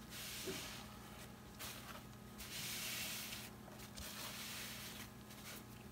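Soft rustling and scraping of paper towels as the painted board is slid and turned on them by gloved hands, in several bursts, the longest in the middle.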